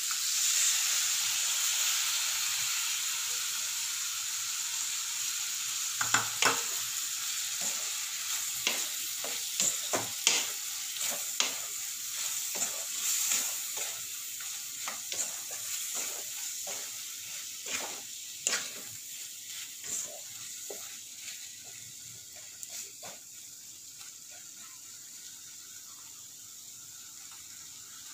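Gravy going into a hot pan and sizzling, the sizzle slowly dying down. From about six seconds in, a spoon stirring in the pan with many short clinks and scrapes, thinning out near the end.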